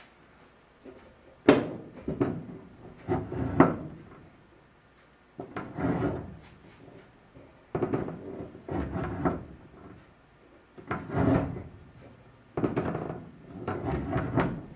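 Cowl vent lid of a 1948 Ford F1 being worked open and shut on its new seal. It makes a series of about seven scraping, clunking strokes, each a second or two long with a sharp start and quiet gaps between.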